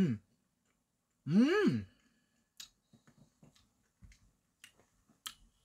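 Two short wordless vocal sounds from a young man reacting to the taste of yogurt ice cream cake, the second louder, its pitch rising and then falling. Faint scattered clicks follow.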